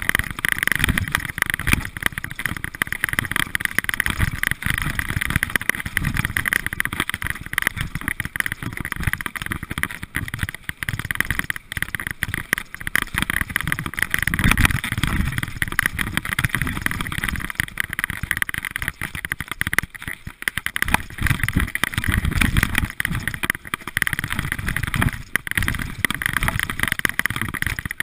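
Mountain bike riding fast down a rough dirt trail: wind rushing over the action camera's microphone, mixed with the rumble and rattle of the tyres and bike over bumpy ground, surging unevenly throughout.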